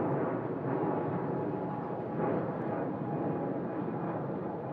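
Boeing 777-200 airliner's twin jet engines at takeoff power as it climbs out: a steady rumble with a faint steady high tone running through it.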